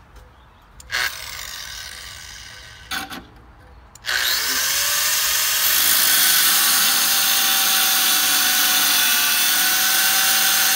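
Handheld angle grinder switched on briefly about a second in and left to spin down, blipped again near three seconds. From about four seconds on it runs continuously under load with a steady high whine, cutting flat metal bar stock.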